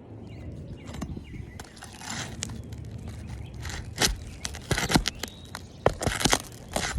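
Asphalt roof shingles being pried and worked loose by hand and tool: rough scraping and crackling of the shingles with several sharp clicks and knocks, busier in the second half.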